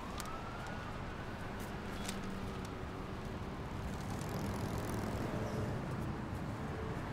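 An emergency-vehicle siren wails once, its pitch rising over the first second and sinking slowly over the next two, above a low steady city rumble.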